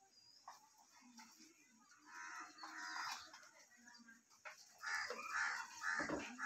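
Chickens clucking faintly, in two stretches: about two to three seconds in, and again more loudly from about five seconds in.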